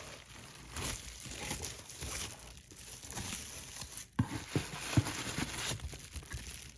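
Packaging crinkling and rustling as it is handled and opened, with a few small knocks about four and five seconds in.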